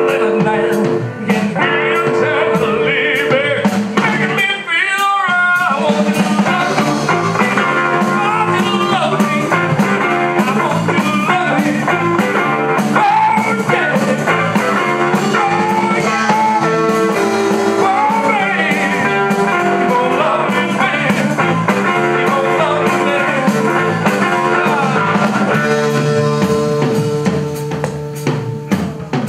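Live blues band playing at full volume: drum kit keeping a steady beat under a stepping bass line, with guitar, keyboard and a singing voice.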